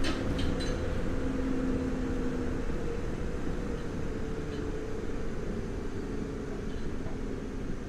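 Nagoya Municipal Subway 3000 series electric train heard from inside the car while running: a deep rolling rumble under a steady drive whine that sinks slowly in pitch and grows a little quieter as the train slows. A few sharp wheel clicks over rail joints come right at the start.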